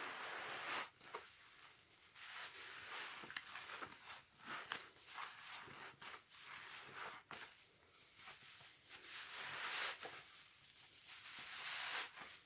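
Sponge soaked in washing-machine liquid squeezed by hand, wet squelching and crackling of thick suds, swelling and easing over several squeezes.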